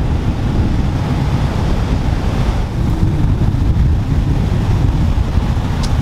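Wind buffeting the microphone as a steady low rumble, over the constant wash of surf breaking on the shore.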